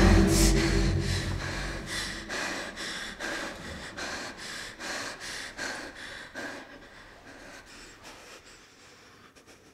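A woman breathing hard in quick, noisy breaths, about two a second, that slowly calm and fade away. A low rumble dies out in the first second or so.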